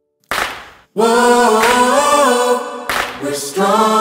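Background music: a song with singing voices holding long, gliding notes, broken by a brief noisy hit about a third of a second in and another just before three seconds.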